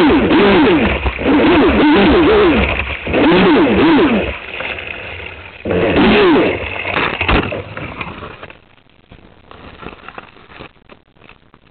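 Aquacraft SV27 RC boat's brushless electric motor whining through repeated throttle bursts, its pitch rising and falling several times over the rush of water. It winds down about eight seconds in, leaving faint clicks and splashes.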